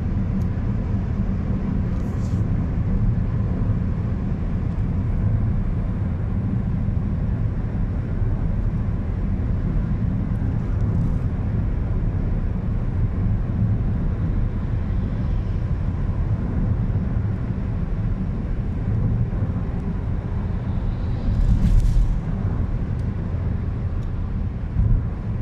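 Steady low road and engine rumble of a car driving at highway speed, heard from inside the cabin, with a brief louder rush for about a second near the end.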